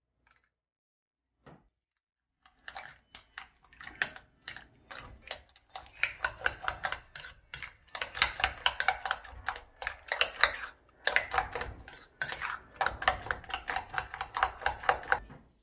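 Quick, repeated tapping of a kitchen utensil, several strikes a second, starting after one lone tap and running on with a few short pauses.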